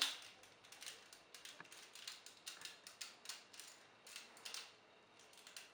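Faint, irregular clicks and taps of hard plastic toy parts being handled and moved on a Titan Megazord transforming toy.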